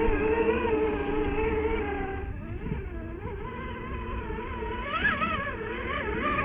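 Electric motor and geared drivetrain of a Traxxas TRX4 RC crawler whining, the pitch wavering up and down with the throttle. It eases off a couple of seconds in and rises again near the end.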